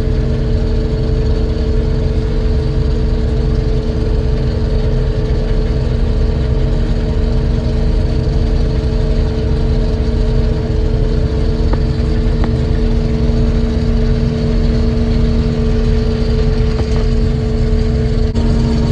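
Combine harvester running steadily while cutting soybeans: a loud, unchanging drone with a constant low hum.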